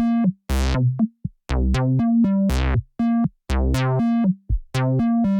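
Electronic synthesizer music: short pitched synth notes over deep bass hits, with repeated falling zap-like sweeps.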